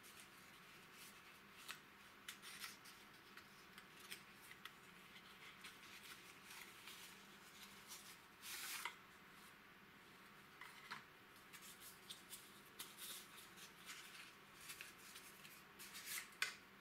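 Faint rustling and scraping of a small cardboard valve box being opened and a glass valve slid out of it, with light clicks and taps of handling. There is a longer scraping rustle about halfway through and a sharper click near the end.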